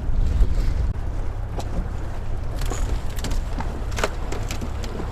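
Low wind rumble on the microphone aboard a boat, with a handful of short sharp clicks and knocks about a second and a half in and again between about three and four and a half seconds in.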